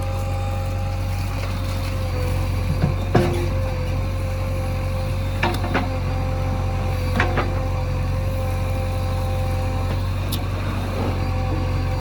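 JCB backhoe loader's diesel engine running steadily with a deep drone and a steady whine over it, with a few sharp knocks at irregular intervals.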